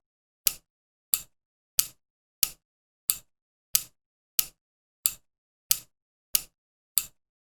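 Metal finger rings clicking together in a steady rhythm of sharp, short clicks, about three every two seconds.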